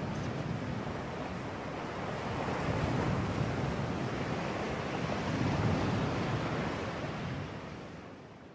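Ocean waves washing, an even rushing noise with no tones, swelling slightly twice and fading out near the end.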